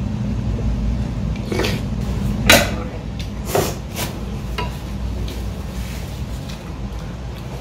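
A few short clinks and knocks of tableware being handled, a small ceramic bowl set down and a metal ladle against a big bowl, with the loudest knock about two and a half seconds in, over a steady low hum.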